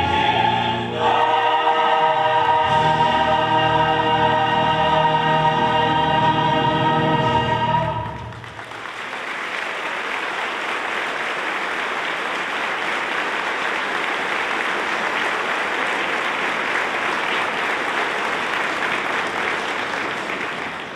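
Choir singing a long held final chord, which ends about eight seconds in; the audience then breaks into steady applause that lasts about twelve seconds.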